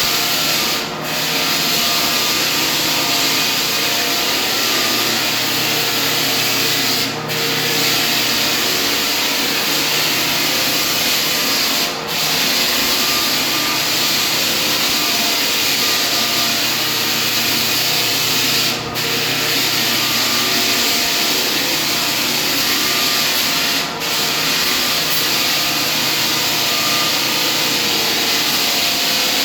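Floor sanding machine running steadily on a hardwood floor, a loud continuous abrasive hiss that briefly dips five times, every five to seven seconds.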